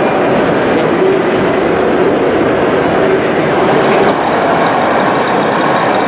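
Steady diesel-engine rumble from the sound modules of radio-controlled model trucks, running on without a break.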